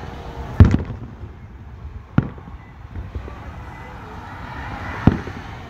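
Aerial firework shells bursting with sharp booms, three in all: the loudest about half a second in, then one about two seconds in and another about five seconds in.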